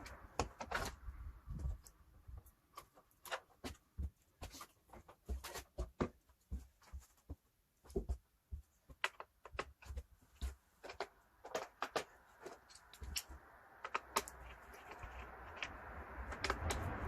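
Scattered, irregular clicks and knocks of hand tools and plastic parts being worked loose during engine-bay disassembly, with short quiet pauses between them.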